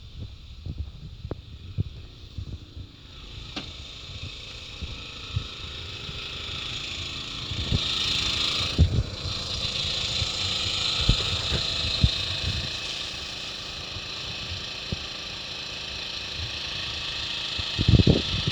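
An engine running steadily, joined by a hissing rush that builds over the first eight seconds or so and then holds. Scattered short low thumps come throughout, heaviest near the end.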